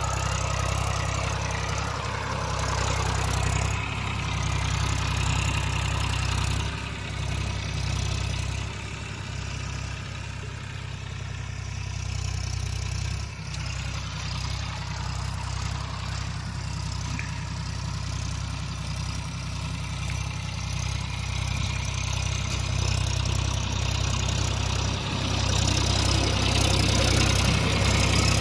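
Massey Ferguson tractor's diesel engine running steadily, its level dipping for a few seconds midway and rising again toward the end.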